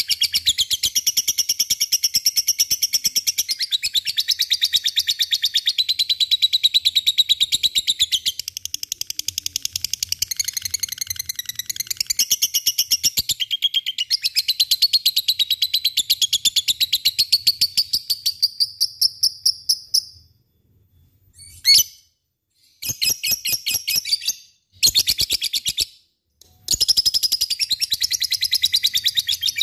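Rosy-faced lovebird singing its long, fast chattering 'ngekek' song, a rapid run of high chirps. The song runs for about twenty seconds, breaks off, returns in two short bursts, then picks up again near the end.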